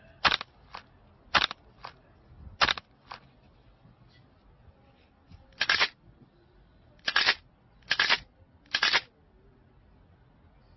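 A series of sharp clicks: three pairs, each a louder click followed by a softer one, then after a pause four longer, louder clicks about a second apart.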